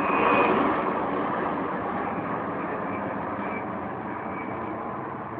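Twin CFM56 turbofan engines of a narrowbody jet airliner at take-off power climbing away overhead: a steady jet roar and hiss with a faint high whine, slowly fading.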